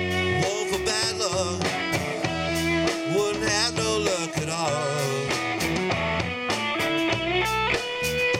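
Live blues-rock band playing an instrumental break: a lead electric guitar solos with held notes that bend and waver, over bass guitar and drum kit.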